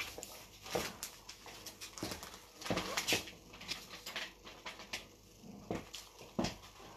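Irregular knocks and taps from handling close to the microphone, then footsteps of cowboy boots on a tiled floor.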